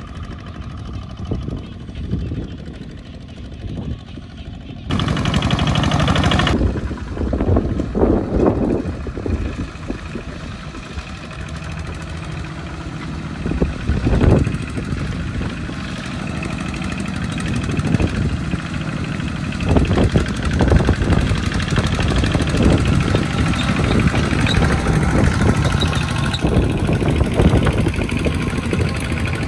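Single-cylinder diesel engines of two-wheel walking tractors chugging under load as they haul rice trailers through mud, several engines at once. Softer and more distant for the first few seconds, then suddenly louder and close from about five seconds in.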